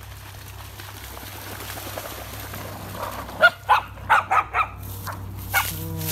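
Dogs wading through shallow pond water, with water sloshing. About three and a half seconds in comes a quick run of five or six barks, and one more bark near the end.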